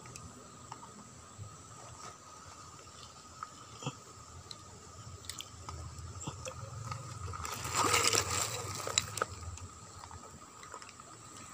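Shallow stream water with small clicks and handling noises at the water's edge, and a brief louder splash about eight seconds in.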